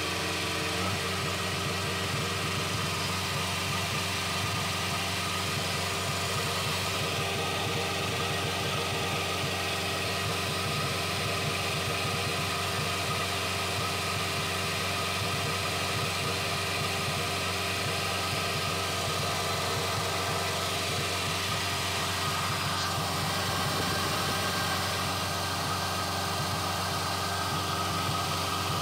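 The four-cylinder diesel engine of a Kubota DC-70 combine harvester running steadily, heard up close. The owner listens to it for an unusual sound because it blows black smoke and loses power, a fault he suspects lies in the fuel injection pump.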